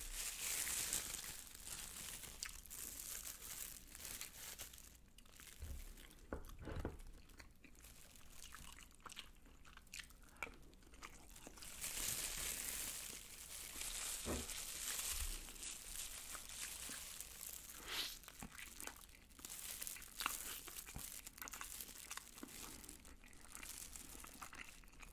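Disposable plastic glove crinkling as a hand tears apart sauced fried chicken (yangnyeom chicken), with crunching and chewing close to the microphone: many small scattered clicks and rustles.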